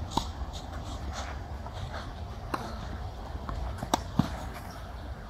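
Tennis racquets striking the ball during a doubles rally: four sharp pocks, the last two close together near the end, over a steady low outdoor rumble.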